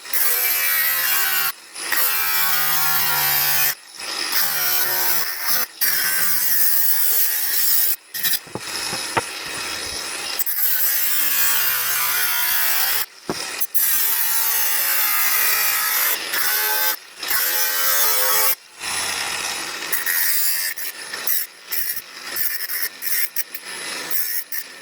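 Power tool working the car's body sheet metal in repeated runs, its motor pitch sagging and recovering under load, with brief stops between runs.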